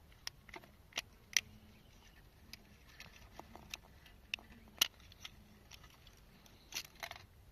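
Irregular sharp clicks and taps of small metal parts and tools as an old alarm clock is taken apart. The two loudest come about a second and a half in and just under five seconds in, with a brief scraping rustle near the end.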